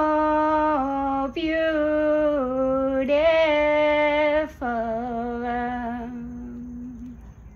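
A woman singing unaccompanied in four long, held notes, stretching out the words "so beautiful"; the last note is the longest and fades away.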